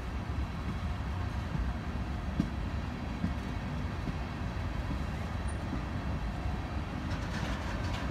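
Freight train's tank cars rolling past: a steady low rumble of steel wheels on rail, with a sharp clank about two and a half seconds in.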